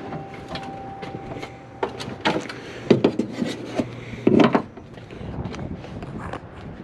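Car hood being handled and opened: scattered knocks, clicks and rubbing, with one heavier thump about four and a half seconds in, over a low steady hum.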